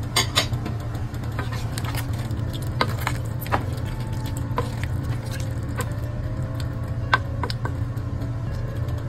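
Wooden spatula stirring a thick stew of meat and vegetables in a metal pot, with scattered knocks and scrapes against the pot. A steady low hum sits beneath throughout.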